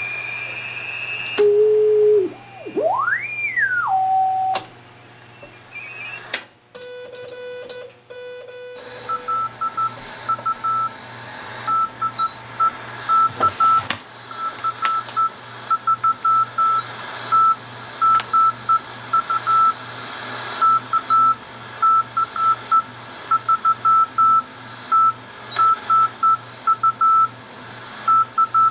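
Drake 2-C receiver's speaker: whistles that slide up and down in pitch as the receiver is tuned across signals on the 40-metre band, then from about nine seconds in a Morse code (CW) signal, one steady-pitched tone keyed in dots and dashes, with a steady low hum underneath.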